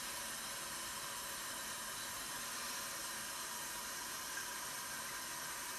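Kitchen faucet running in a steady hiss of water into the Keurig K-Compact's plastic water reservoir, filling it.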